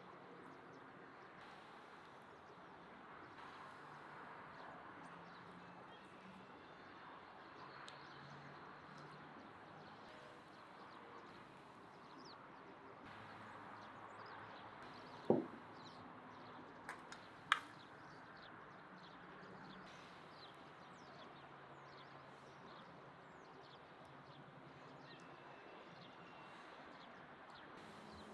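Faint quiet background with small high ticks, broken about halfway through by two sharp clinks of metal serving tongs against the pan, about two seconds apart.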